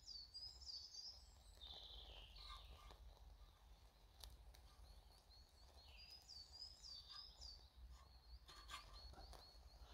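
Near silence with faint birdsong: a small bird's quick run of high chirps near the start, repeated about six seconds in. A few faint clicks fall in between.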